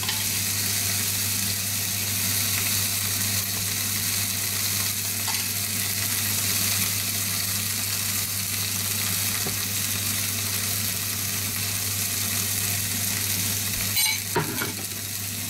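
Steak and sliced onions sizzling steadily as they fry in oil in a cast-iron grill pan, with a couple of short knocks near the end.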